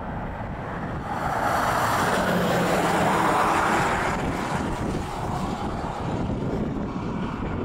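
Wind buffeting the microphone: a steady low rumble, with a louder rush of noise that swells about a second in and fades again a few seconds later.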